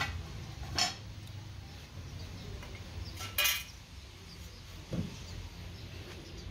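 Metal hand tools clinking as they are picked up and set down: four separate clinks, the loudest about three and a half seconds in, over a low steady hum.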